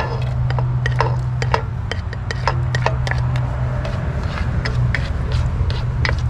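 Garlic frying in hot oil in a pan, crackling with many irregular sharp pops over a steady low hum.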